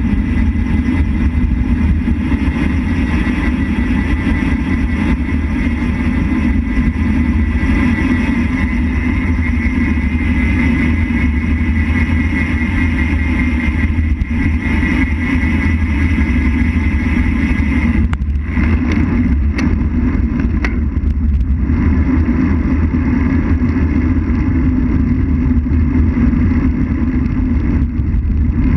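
Steady wind rumble on a bicycle-mounted action camera's microphone, with tyre noise from rolling on an asphalt road. A handful of sharp clicks come about two-thirds of the way through.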